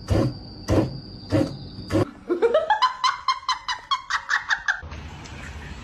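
A steady high tone with a knock about every half second, then a rising squeal that breaks into a fast run of high-pitched laughs, about six a second, ending a second before the end.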